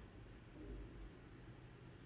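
Near silence: faint room hiss, with a soft low bump a little over half a second in.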